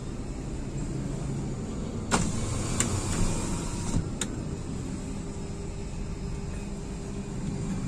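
Electric power window of a 2016 Toyota Calya running, with several sharp clicks about two, three and four seconds in. A steady low hum from the car continues underneath.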